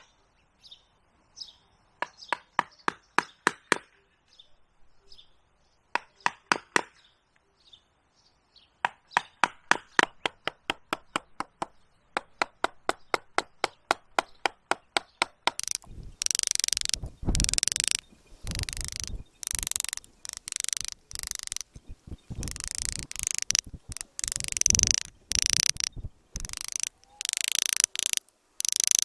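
Hand carving tools cutting into a living tree's wood: quick runs of sharp taps, several a second. Past the middle these give way to a series of longer scraping strokes. Faint bird chirps can be heard at the start.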